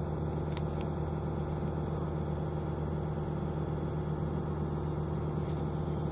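Sumitomo SH130LF excavator's diesel engine running at a steady, unchanging pitch while the bucket works in the trench.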